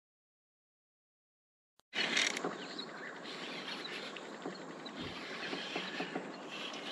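About two seconds of dead silence, then steady outdoor evening ambience: insects chirring with scattered small clicks and knocks.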